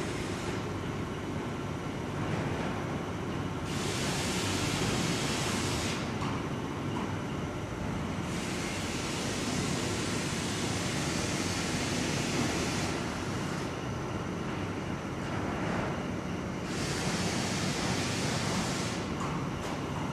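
Steady machinery noise of a melamine board lamination factory floor, with a loud hiss that swells in and cuts out three times, each lasting a few seconds.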